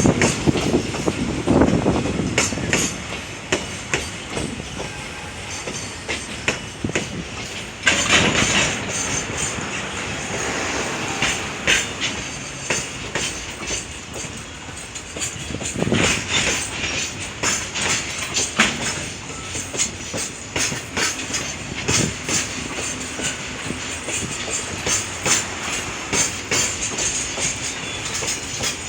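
Freight train rolling past, its wagon wheels clattering over rail joints in a continuous stream of clicks with swells of louder rumbling every few seconds.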